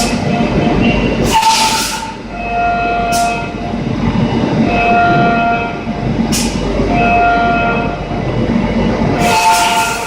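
CNC end mill cutting 7075 aluminium at 14,000 rpm with its three flutes, giving a steady whine pitched near 700 Hz, the tooth-passing rate. The whine comes in stretches of a second or two and shifts in pitch between them as the cut changes along the box toolpath. Short hissing bursts come in between, about four times.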